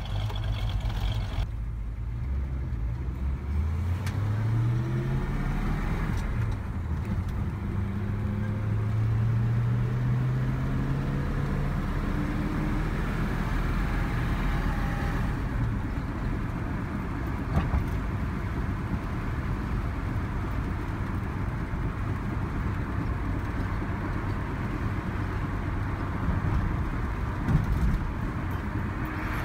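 1965 Ford Mustang V8 running through its dual exhaust, idling at first. It then pulls away with the engine note rising twice, a gear change between the two pulls. After that it runs steadily at cruising speed with road noise and a couple of brief knocks.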